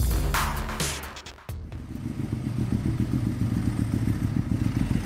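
A music sting ends in the first second and a half. An engine then runs steadily at idle in the background, a low pulsing rumble.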